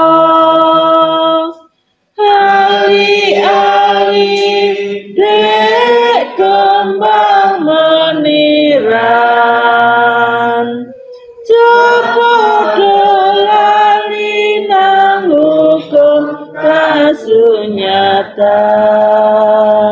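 A group of voices sings a Javanese Buddhist devotional song in unison, led by a woman's voice on a microphone. The notes are long and held, with short breaks about two seconds in and about eleven seconds in.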